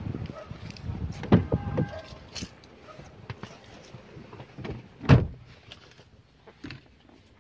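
A car door is opened, then pulled shut with a solid thud about five seconds in, with smaller knocks from handling around it.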